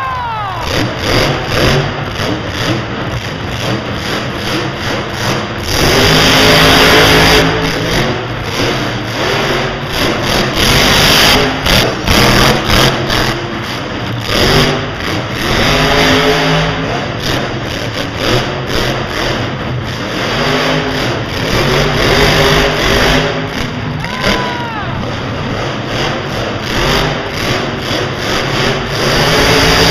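Grave Digger monster truck's supercharged V8 revving hard in repeated bursts, its pitch rising and falling again and again as the throttle is worked through a freestyle run.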